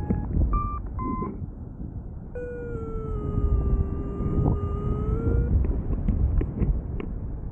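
Paragliding variometer beeping: a few short beeps, then a long, lower continuous tone that sags in pitch and climbs back, the sink tone that signals the glider is descending. Wind noise on the microphone runs underneath.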